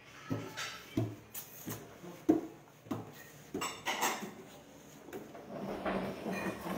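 Scattered light knocks and clicks, a few each second, from the phone being handled and moved about in a small room.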